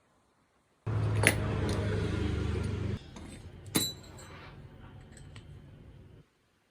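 A machine hums steadily for about two seconds, then drops away, and a single sharp metallic clink rings out, followed by a few lighter taps of metal on metal.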